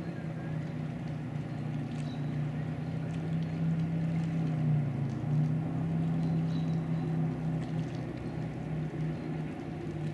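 Tower wakeboard boat's inboard engine running at speed, a steady low drone that swells louder about halfway through and then eases off a little.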